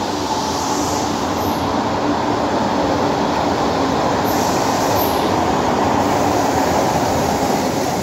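Passenger train running in along the platform and passing close by: a loud, steady rumble of the train and its wheels on the rails that grows slightly as the carriages draw level. There are two brief high squeaks, one about a second and a half in and one about five seconds in.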